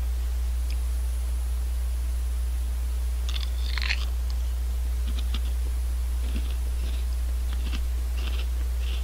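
A person biting and chewing crisp Honey Tong Tong potato snacks: one loud crunching bite about three and a half seconds in, then a run of small crisp crunches as the chewing goes on. A steady low hum runs underneath.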